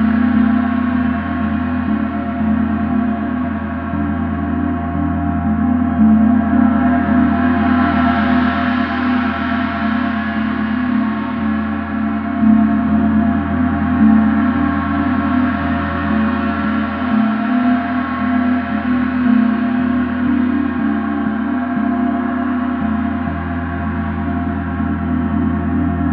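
Large gong played continuously for a gong bath: a sustained wash of many ringing overtones over a strong low hum. The upper shimmer swells and fades every several seconds as the gong is struck again.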